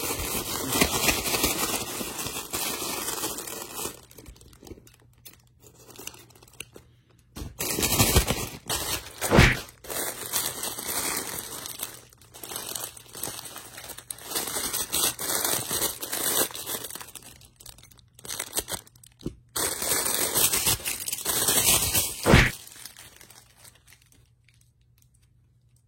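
Plastic packaging bag crinkling and tearing in irregular stretches as a plush toy is unwrapped, with a few sharp crackles. It goes quiet near the end.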